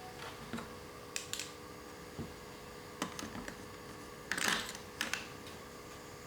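Plastic toy parts being handled: scattered light clicks and taps, about eight of them, with a slightly longer scrape about two-thirds of the way through. A faint steady hum lies under them.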